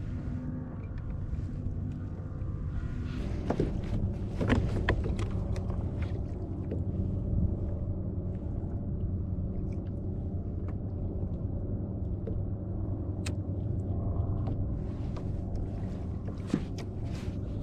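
Boat engine running steadily as a low hum, with a few sharp knocks about three and a half to five seconds in.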